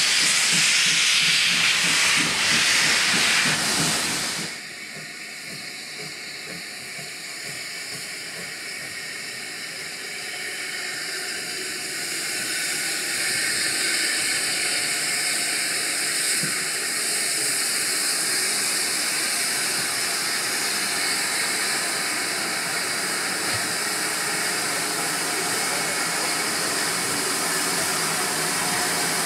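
Steam locomotives hissing. First a loud hiss of escaping steam from an 0-4-0 saddle-tank engine standing wreathed in steam, cut off suddenly about four and a half seconds in. Then a steadier hiss from a GWR 0-6-2T tank engine that grows louder over a few seconds and holds, with no exhaust beats.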